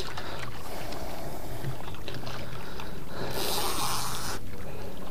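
Steady low hum and hiss of a small boat at sea, with a louder rush of hiss lasting about a second, a little over three seconds in.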